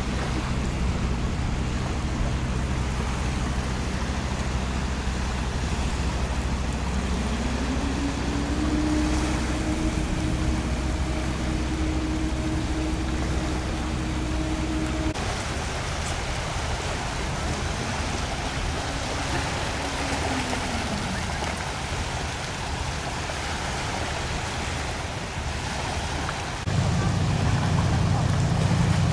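Low, steady engine hum of a passing wooden replica galleon tour ship, with a higher tone that rises about a quarter of the way in and holds. About halfway through it switches abruptly to waves washing on a sandy shore with wind. Near the end a boat engine's low hum starts suddenly, from an orange pilot boat under way.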